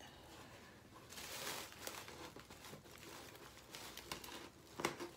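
Crinkling and rustling as cotton rounds are handled and fetched, with a sharp tap near the end.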